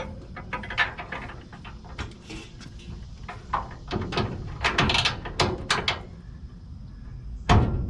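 Steel U-bolts clinking and scraping against the lower control arm's cross shaft and crossmember as they are worked toward their holes: an irregular run of metal clicks and knocks, with a heavier knock near the end. The U-bolts are sprung a little too wide for the holes and won't go in easily.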